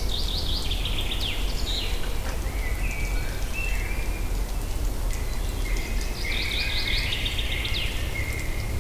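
Songbirds singing over a steady low background rumble. There are two phrases of rapid, repeated downward chirps and trills, one at the start and one about six seconds in, with shorter high notes between them.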